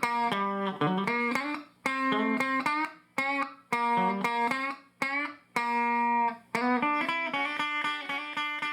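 Electric guitar played through a 1987–1989 Fender The Twin (red-knob) valve amplifier with four 6L6GC power tubes. It plays short single-note phrases with string bends, broken by brief pauses.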